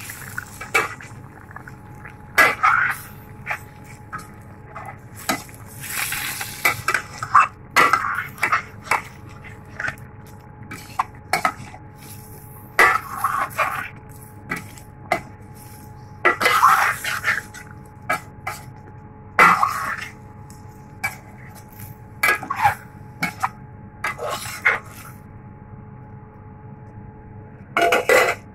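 Slotted spatula scraping and knocking against the pot while stirring a chicken curry, in irregular strokes with a few longer scrapes, over a faint steady hum.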